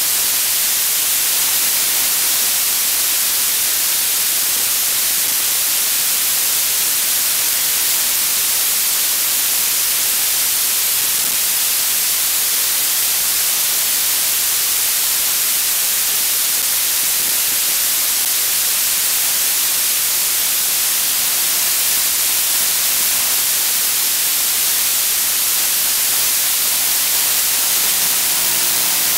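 Steady, loud static hiss, even and strongest in the high range, from an analog FPV video receiver's recording with no sound of its own. Near the end a faint set of steady tones comes in under the hiss.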